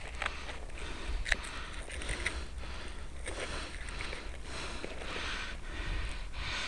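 Rustling and scattered small clicks as the foam flying-wing model is handled and turned over, rubbing against the onboard camera's microphone, over a low wind rumble. The electric motor is not running.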